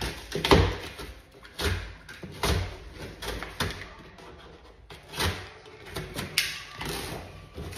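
Packaging and parts of a boxed e-bike being handled and set down: about a dozen irregular knocks and thumps, the loudest about half a second in.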